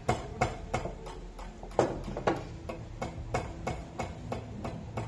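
Toyota 2KD diesel injector being pumped on a hand-lever pop tester: a steady run of sharp clicks, about four a second, some with a brief ring. The injector is one the mechanic calls faulty.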